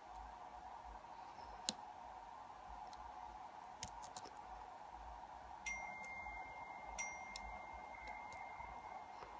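Lock pick working the pin stack of a pin-tumbler lock clamped in a vise: sparse faint ticks and clicks of metal on metal as pins are lifted and set. A little past halfway a thin, high metallic ring starts and holds steady almost to the end.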